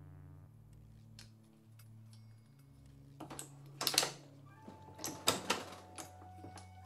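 Reloading press working a .30-06 brass case, lubricated with sizing wax, up into the full-length sizing die and back down: two bouts of metallic clacking and scraping, about three and five seconds in. Soft background music runs underneath.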